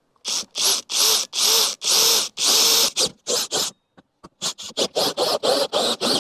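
Cordless drill with a hole saw cutting through a camper's thin luan plywood inner wall in repeated trigger bursts, each a whine that rises and falls. The bursts come longer at first, then short and quick near the end. The sound is fast-forwarded.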